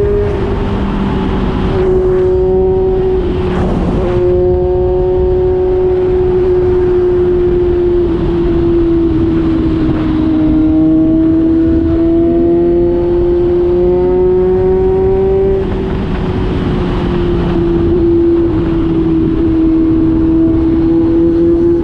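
Kawasaki Z900's inline-four engine through an SC-Project GP1 exhaust, running at a high, steady pitch that drifts slowly down and back up without any sharp revs.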